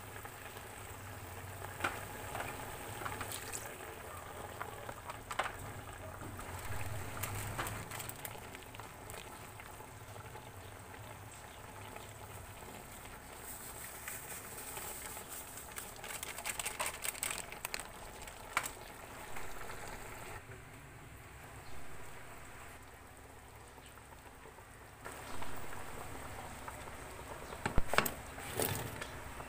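Chicken stew cooking in a metal pot: a steady hiss of simmering, with scattered clicks and scrapes of a spatula against the pot. Near the end there are a few louder knocks as cut potatoes and carrots are tipped into the bubbling sauce.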